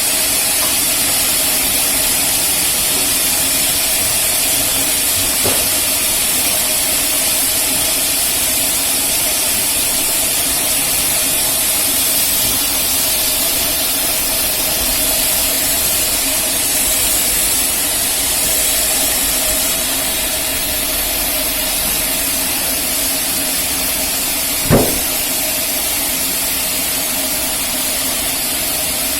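Rail-mounted band sawmill running steadily, a constant hiss over a steady machine hum, with one sharp knock near the end.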